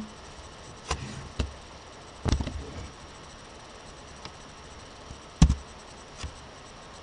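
A few scattered clicks and knocks from a computer keyboard and mouse, over a faint steady hiss; the loudest click comes about five and a half seconds in.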